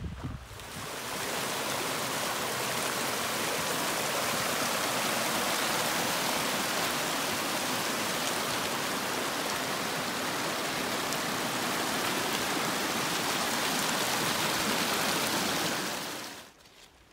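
Snowmelt water running close by, a steady rushing hiss that starts about a second in and stops abruptly just before the end.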